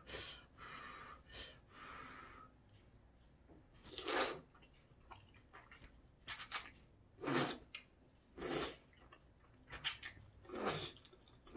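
A person slurping thick udon noodles out of hot broth: about six short, noisy slurps from about four seconds in, after a few soft breaths at first.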